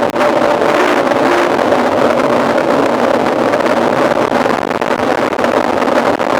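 Loud, steady wind rush over the microphone of a camera carried on a moving mountain bike, mixed with tyre and drivetrain rattle.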